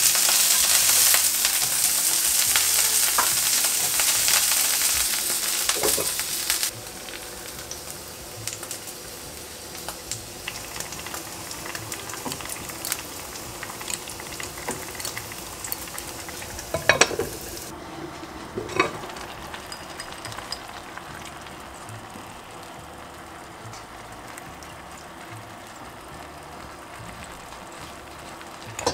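Pieces of food sizzling loudly in a hot oiled frying pan on a gas stove as they are turned with a spatula. The sizzle cuts off suddenly about seven seconds in. After that comes a much quieter steady sizzle, with a few clinks of utensils at about 17 and 19 seconds.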